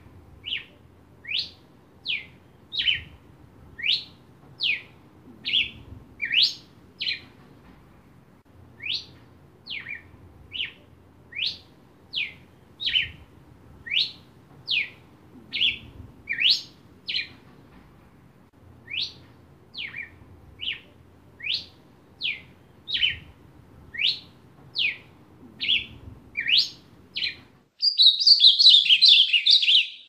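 Red-crested cardinal singing: clear slurred whistled notes, some rising and some falling, about two a second, in runs of several seconds with short pauses. Near the end a louder, denser burst of bird song takes over.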